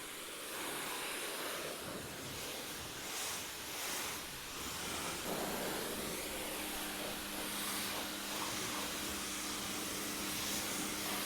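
AIVOLT electric pressure washer rinsing a car with clean water: a steady hiss of spray against the bodywork, joined about halfway through by a steady low hum.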